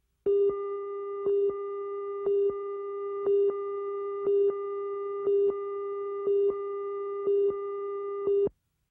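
Videotape countdown-leader tone under a programme slate: a steady tone with a louder beep once a second, marking each second of the countdown. It stops abruptly near the end.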